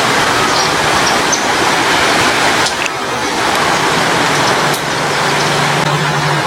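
Steady heavy rain, with a few short bird chirps in the first couple of seconds. From about four seconds in a low, steady engine-like hum joins the rain.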